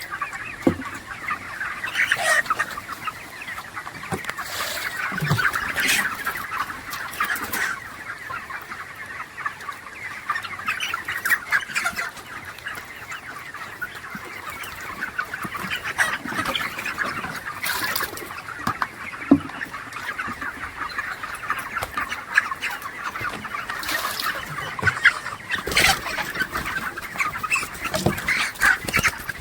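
A large flock of chickens in a poultry house calling continuously, many overlapping clucks and cheeps, with occasional short knocks.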